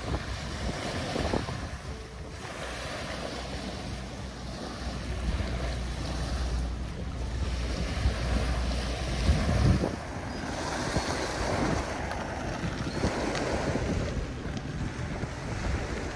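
Wind buffeting the microphone over choppy water lapping at the shore, the low rumble of the wind swelling in gusts, heaviest in the middle.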